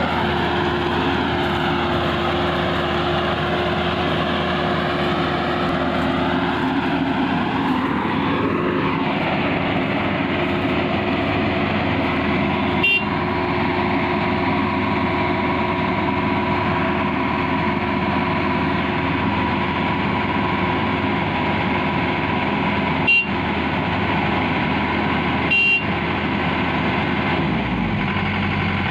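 Crawler combine harvester running steadily under load, its engine and machinery giving a constant drone with a few steady whining tones. The pitch wavers briefly about eight seconds in, and three short clicks come later.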